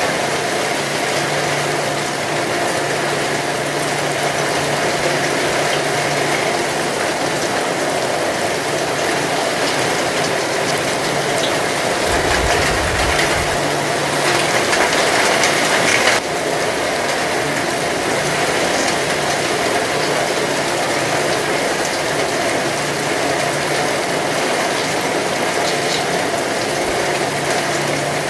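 Heavy rain falling steadily, a dense even hiss and patter. It swells louder a little past the middle and then drops back abruptly.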